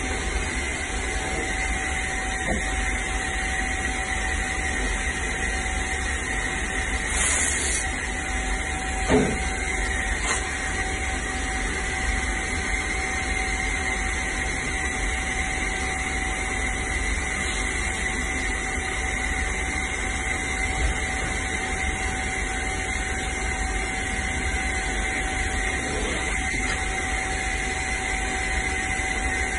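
Steady machine drone with hiss and two constant tones, from running body-shop equipment, with one brief knock about nine seconds in.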